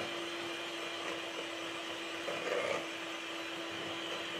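Electric hand mixer running at a steady speed, its wire beaters whisking egg yolks and brown sugar in a stainless steel bowl, with a steady motor hum. The yolks are being beaten until they turn paler and thicken.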